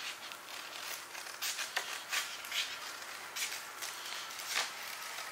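A sheet of 600-grit sandpaper being cut and handled to make a 3-inch sanding disc: a series of short, crisp rasps at irregular intervals.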